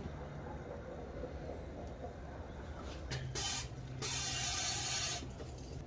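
Hissing from a vacuum coolant-fill tool as coolant is drawn into the evacuated cooling system: a short hiss a little after three seconds, then a louder one lasting about a second.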